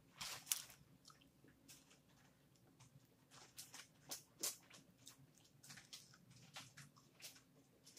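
Close-up mouth sounds of chewing a breaded mozzarella stick: a run of soft, irregular wet clicks and squishes, the loudest about half a second in.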